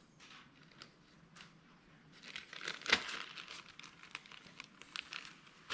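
Small clear plastic bag crinkling as gloved hands handle and open it, with light rustles, a busier stretch about two to three and a half seconds in, and one sharper crackle near the three-second mark.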